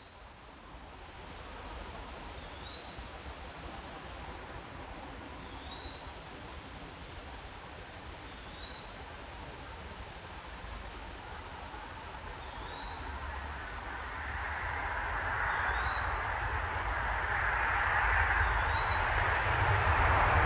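Crickets trilling steadily in the woods, with a short high chirp repeating about every three seconds. From about two-thirds of the way in, a vehicle's road noise swells steadily louder as it approaches.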